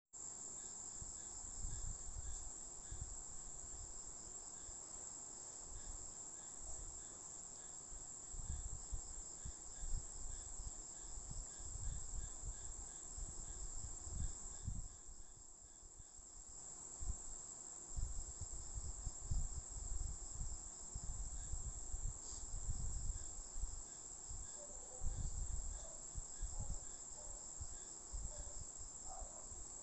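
Steady high insect chirring with a fine, fast pulse that goes on throughout, over irregular low bumps and rumbles.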